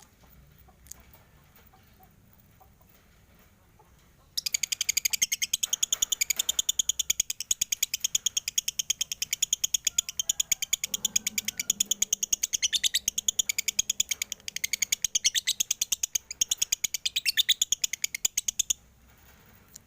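Male lovebird chattering: after a few quiet seconds it breaks into a long, fast, unbroken string of sharp high chirps, many per second, for about fourteen seconds, then stops abruptly. This is the chatter that keepers read as a sign of a male lovebird heading toward 'konslet'.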